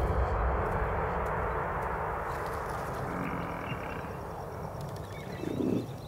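African buffalo herd moving through dry grass: a steady rustling, trampling noise that slowly fades. A short, low animal call comes near the end, and faint bird chirps sound in the background.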